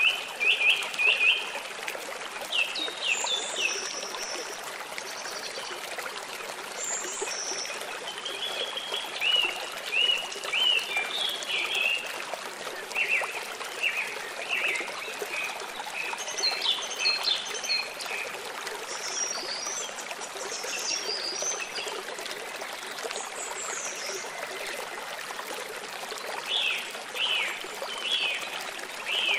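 A small stream trickling steadily over rocks, with birds chirping in short runs of quick notes now and then.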